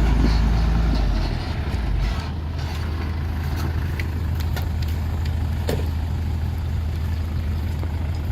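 Dump truck's diesel engine running with a low rumble that drops to a lower, steady level about two seconds in, with a couple of faint clicks later.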